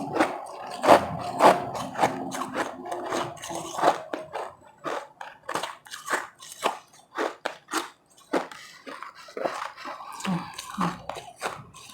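Close-miked chewing of powdery frozen ice: a dense run of crisp crunches that thins after about four seconds into separate crunches, a few each second.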